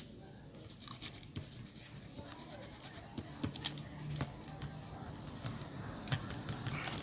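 A small glue brush dabbing and scraping glue onto the end of a leather strap, making irregular small scratches and clicks.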